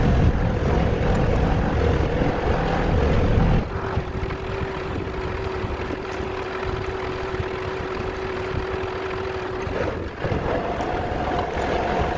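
An engine running steadily with a held hum. The sound changes abruptly about four seconds in, becoming quieter with a lower hum, and again near ten seconds in, to a higher hum.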